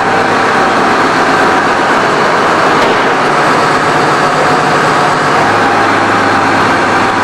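Steady machinery noise: a constant rushing drone with a low hum running under it.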